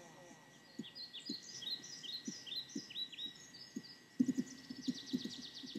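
Background nature-sound bed of the meditation track: birds chirping in short falling chirps about twice a second over soft low thuds. A faint steady high tone runs throughout. About four seconds in, a quicker bird trill joins.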